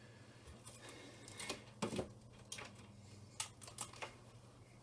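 A few short, light clicks and knocks, irregularly spaced, from computer hardware and cables being handled, over a low steady hum.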